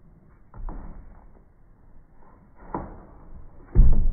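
Three dull thumps and knocks, the loudest near the end, as a German Shepherd scrambles up onto a raised plastic dog cot beside another dog.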